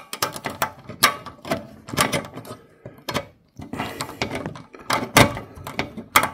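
A screwdriver working at a metal expansion-slot bracket of a PC case: a run of sharp metallic clicks and scrapes, with a brief pause about halfway through.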